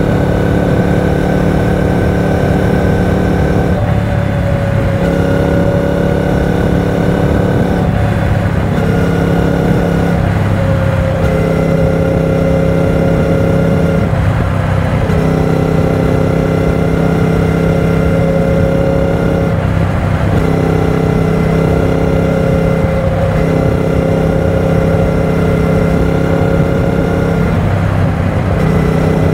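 Triumph Speed Twin 900's parallel-twin engine running at highway cruising speed, with wind and road noise. The engine note holds steady for a few seconds at a time, with brief changes in between as the throttle eases and opens.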